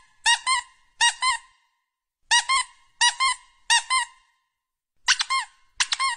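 Rubber squeaky-toy squeaks in quick pairs, repeated about seven times with short silent gaps between them. Each squeak rises and falls in pitch.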